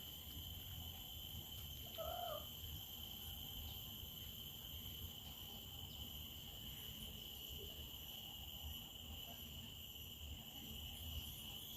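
Insects droning steadily in several high pitches, with one short bird call about two seconds in, over a low rumble.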